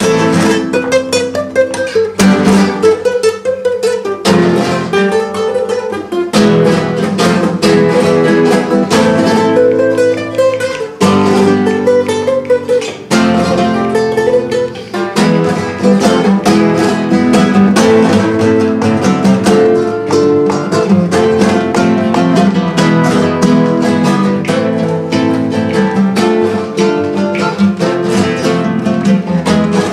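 Acoustic guitar music in a flamenco style: quick picked runs mixed with strummed chords, starting abruptly.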